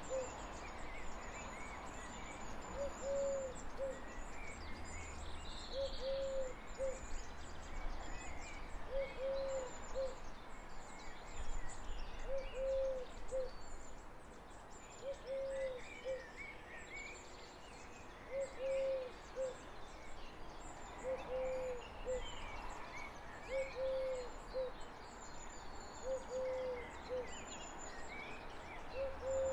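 A dove cooing a low two-part phrase over and over, about every three seconds, with small birds chirping faintly and a faint low rumble in the first half.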